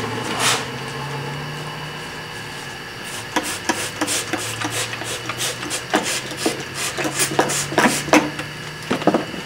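Rag heat-sink wraps being worked off a freshly welded metal part in a bench vise: cloth rubbing and light, irregular metal taps and clicks, busier from about three seconds in, over a steady low hum.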